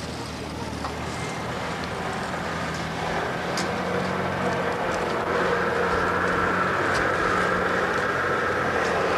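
A motor vehicle's engine running at low speed, a steady low hum that grows louder about halfway through.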